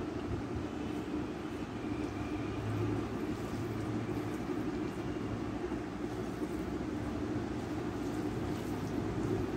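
A steady low hum and rumble of background noise, with a faint scattering of soft ticks above it.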